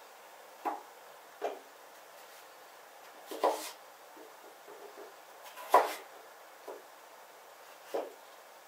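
Kitchen knife cutting through a raw turnip and knocking down onto a wooden cutting board: six separate cuts at an uneven pace, the loudest about two-thirds through.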